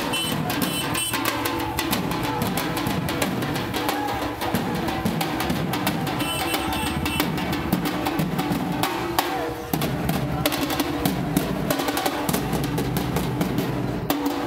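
Music with rapid drumming: a dense, unbroken run of drum beats.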